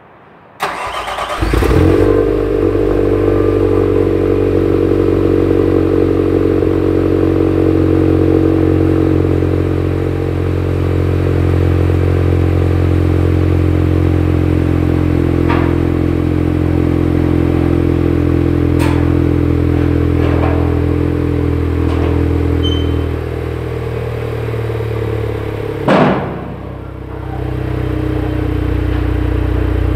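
Opel Astra K 1.4 turbo four-cylinder petrol engine cold-starting through a NAP aftermarket exhaust with the resonator deleted. The starter cranks briefly, the engine catches with a flare, and it then settles into a steady idle that drops slightly past the middle. Near the end there is a sharp knock, and the sound briefly drops before returning.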